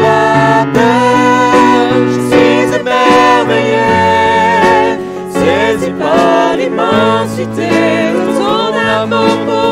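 Live worship band playing and singing a French worship song: women's voices singing together over keyboard, electric guitar and drums.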